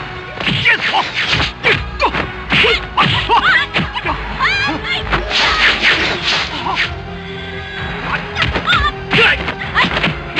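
Kung fu film fight sound effects: a rapid run of punch and kick impacts with whooshes, over background music.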